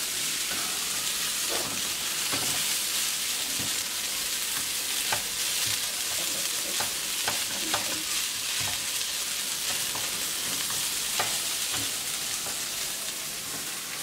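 Fried rice sizzling in a frying pan on a gas burner, stirred and turned with a wooden spatula that knocks and scrapes against the pan at irregular moments.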